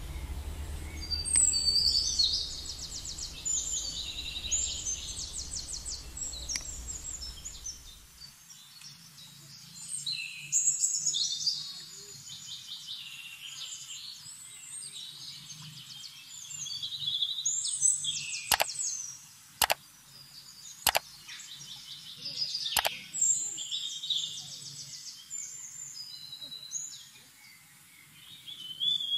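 Songbirds singing in quick trills and chirps, over a low hum that stops about eight seconds in. Four sharp clicks come in the middle.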